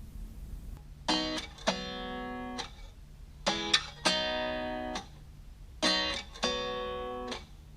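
Acoustic guitar strumming chords, two strokes close together and then left to ring, the pair repeating about every two and a half seconds.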